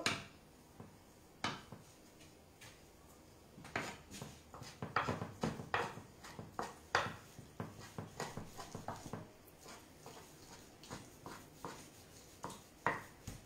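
Kitchen knife chopping raw salmon on a wooden cutting board: irregular knocks of the blade against the board. There is a single knock early, then they come more often from about four seconds in.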